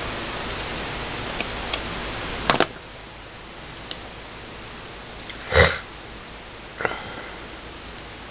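Small sharp clicks and ticks of a metal screwdriver tip and a thin metal battery clip against the coin cell and plastic case of a Polar FS1 heart rate monitor watch as the clip is worked into place, the loudest a quick double click about two and a half seconds in. A short sniff a little past halfway, over a light steady hiss that drops at the double click.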